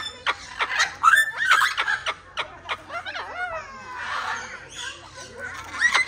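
Parrots chattering: a quick run of clicks, squawks and chuckle-like calls, with gliding whistle-like notes about halfway through.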